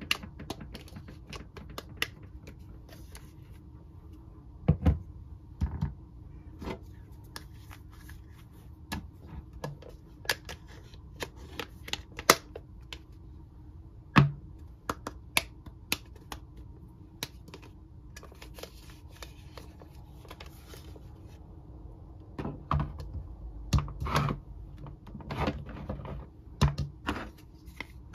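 Hard plastic Mr. Potato Head toy parts clicking and knocking as they are handled, pulled off, pushed into the potato bodies and set down on a table: irregular sharp clicks, busier near the end.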